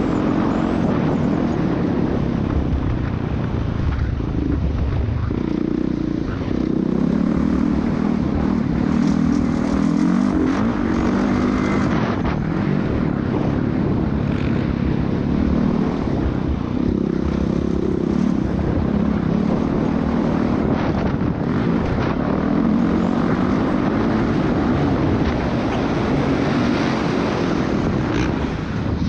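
Dirt bike engine running hard on a motocross lap, its revs rising and falling again and again as the rider works the throttle and gears.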